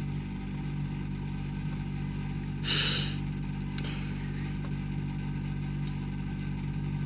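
A steady low hum runs throughout, with one brief breathy rush of noise about three seconds in.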